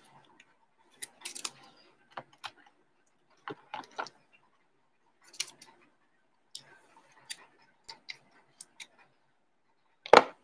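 Trading cards and hard plastic card holders being handled: scattered light clicks, taps and brief rustles. A sharper plastic clack comes near the end as a cased card is set into the cardboard display row.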